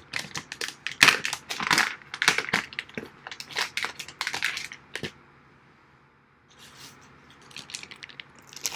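Hand rummaging through small hardware and tools, metal and plastic parts clattering and rustling in a rapid run of clicks and rattles, stopping about five seconds in, then softer clatter starting again near the end.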